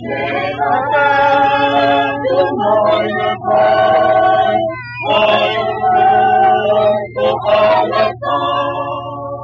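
A large crowd of men and women singing a song together from song sheets, in sung phrases with short breaks between them. A steady low hum runs underneath.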